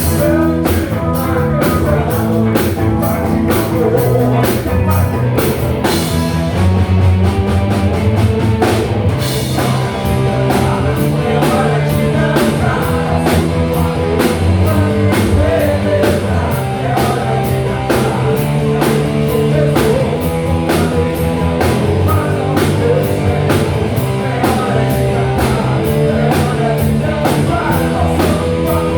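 Rock band playing live: a drum kit keeps a steady beat under electric guitar and bass. About six seconds in the cymbals drop out, coming back some three seconds later.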